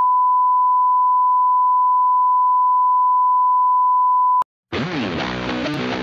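Steady single-pitch test tone played with colour bars, which cuts off with a click about four and a half seconds in. After a short gap, rock music with electric guitar starts.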